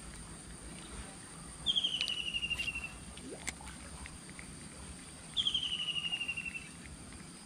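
An animal's rapid high-pitched trill, falling slightly in pitch, heard twice, each about a second long, over a faint steady high hum.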